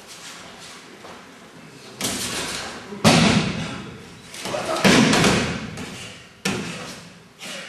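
About five heavy thuds of aikido breakfalls, bodies landing on mats as they are thrown, each dying away over about a second. The loudest comes about three seconds in.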